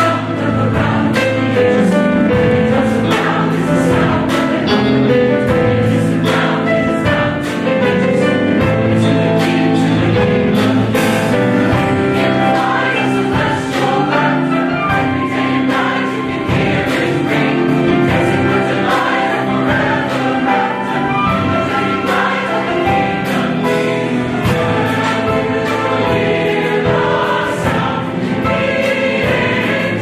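Mixed choir of men and women singing sustained chords with an orchestra accompanying, over a steady beat of sharp strokes.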